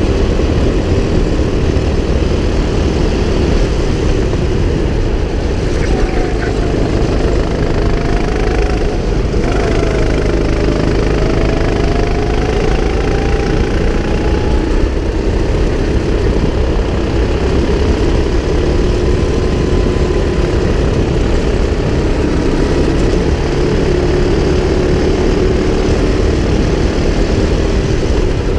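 Go-kart engine heard from the driver's seat while lapping, running steadily under a heavy low rumble. Its pitch dips about six seconds in, then climbs again and steadies as the kart comes through the corners.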